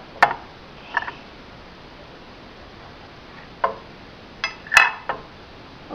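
Cutlery tapping and clinking against a dish: about six light, separate clinks, several close together near the end.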